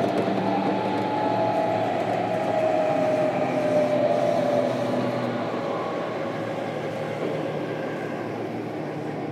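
Running sound inside a JR Kyushu 305 series electric train's motor car: wheel and track rumble with the traction motors' whine, which falls steadily in pitch and grows quieter as the train slows.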